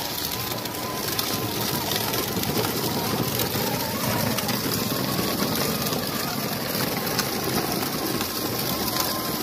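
Battery-powered ride-on toy tractor driving along a gravel road: a steady rolling noise of its motor and plastic wheels on the gravel.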